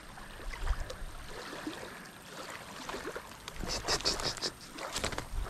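Faint handling noises as a landed largemouth bass is unhooked by hand: light rustling, then a short run of clicks about two-thirds of the way through. Underneath is a low, steady wash like water lapping at the shore.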